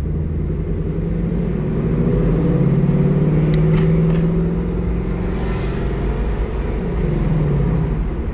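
Ford Mustang GT's V8 exhaust, fitted with a Steeda H-pipe in place of the resonators and with the active exhaust valves in quiet mode, running as the car drives. It swells a little louder about two seconds in, then eases back, with a low, steady tone.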